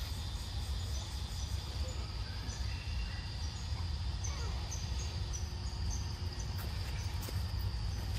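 Insects droning steadily and high-pitched, with a run of short high chirps repeating about twice a second, over a constant low rumble.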